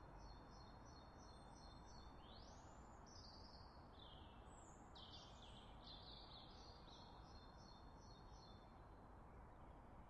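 Faint outdoor city ambience: a steady low background rumble with a songbird singing over it, first runs of quick repeated high notes, then a few sweeping phrases about three to six seconds in, then quick repeated notes again.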